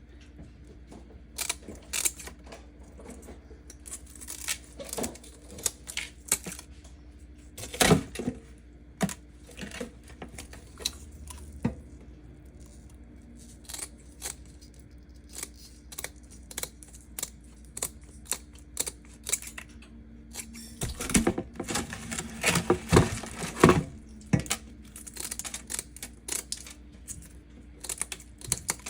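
Irregular sharp clicks and knocks of food preparation, with a run of louder, closer-spaced knocks about two thirds of the way through, over a steady low hum.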